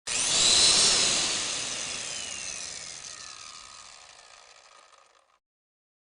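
A power tool's motor spinning down: a whirring whine that falls steadily in pitch and fades out over about five seconds.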